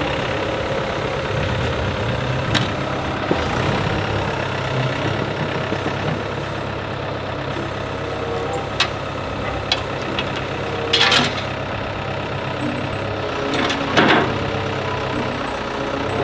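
Sunward SWE80E9 crawler excavator's diesel engine running steadily while its arm is raised, with several sharp clanks, the loudest two near the end.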